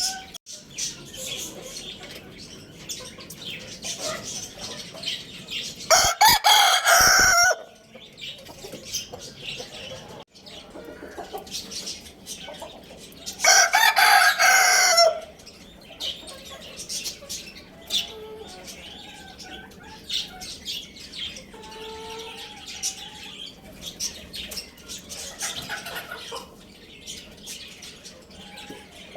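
A rooster crowing twice, each crow about a second and a half long and several seconds apart, with softer clucking and small-bird chirps between the crows.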